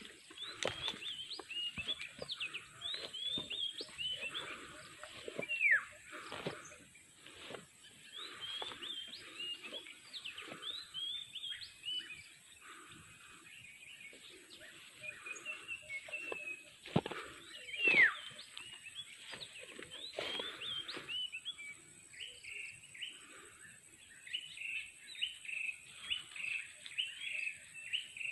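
Outdoor birds chirping and calling, many short chirps throughout and two louder downward-sweeping calls at about six and eighteen seconds. A steady high-pitched whine runs underneath.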